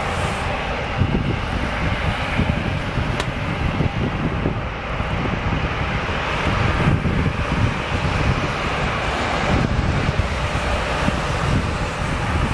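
Twin-turboprop airliner's engines and propellers running as it heads away down the runway, a steady, continuous noise, with wind buffeting the microphone.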